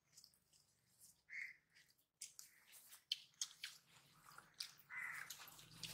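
Near silence, broken by faint scattered clicks and smacks of hands eating rice off banana leaves. Two faint short calls come about a second and a half in and near the end.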